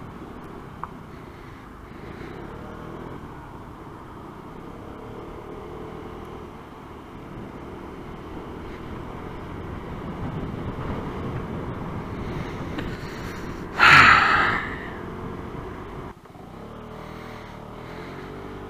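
A 125cc bike's engine running under way with wind noise, its pitch rising and falling with the throttle. About two thirds of the way through there is a loud, harsh sound lasting about a second, much the loudest thing here.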